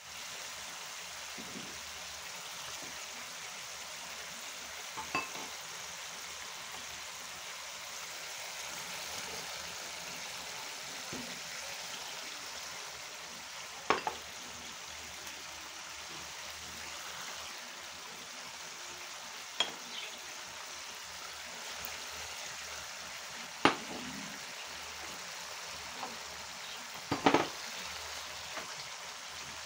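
Chicken pieces in sauce sizzling in a metal wok, a steady frying hiss. Several sharp knocks against the pan break through it, the loudest near the end, as vegetables go in and the pan is stirred.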